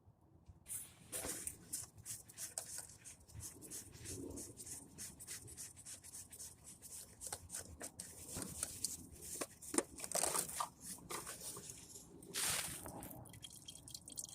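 Irregular clicking, rubbing and scraping from tools and parts being handled close by during an oil change, with a louder scrape near the end.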